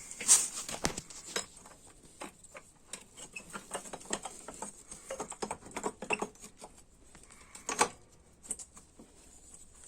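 Irregular clicks, taps and light metallic knocks of hand tools and loose parts on a motorcycle engine as its exhaust header is taken off, with louder knocks just after the start and near the end.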